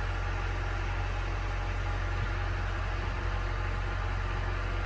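A motor running with a steady, unchanging low hum and a noisy whirr over it.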